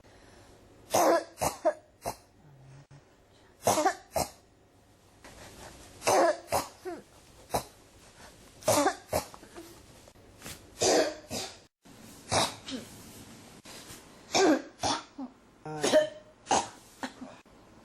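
A person coughing in a persistent fit that won't stop: short bouts of two to four harsh coughs come every couple of seconds, with brief breaths between them.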